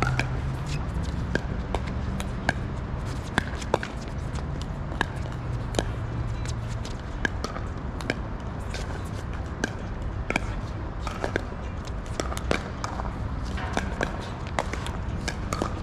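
Pickleball paddles hitting the plastic ball again and again in a long rally: sharp pops at uneven intervals, over a low steady hum.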